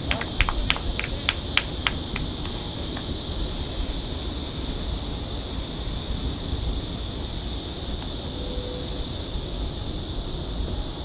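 Steady high-pitched insect chorus, with a quick run of about ten short clicks in the first three seconds and low wind rumble on the microphone.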